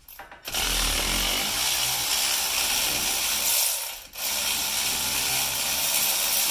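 Power wrench running in two long, steady runs with a brief stop about four seconds in, backing out a hub bearing mounting bolt.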